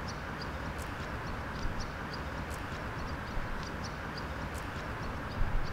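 Outdoor park ambience: a steady low rumble of background noise with small birds chirping in short, high notes throughout.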